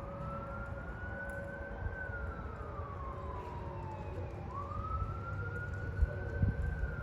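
Outdoor warning siren sounding a slow wail during its routine monthly test. The pitch rises for about two seconds and falls for about two and a half, twice over, with a steady lower tone beneath.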